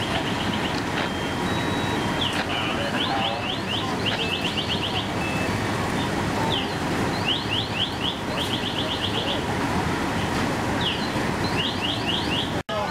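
Fire engine running steadily while pumping water to the hose lines, with trains of rapid, high-pitched electronic chirps repeating several times.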